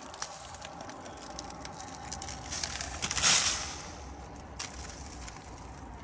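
Dirt, sand, leaves and grass being shaken out of a handheld car vacuum's clear plastic dust cup into a plastic wheelie bin: light clicks and handling, with a louder rustling pour lasting about a second, about three seconds in.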